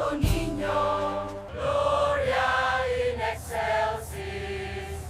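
Choir singing a slow devotional hymn, voices holding notes and moving from note to note.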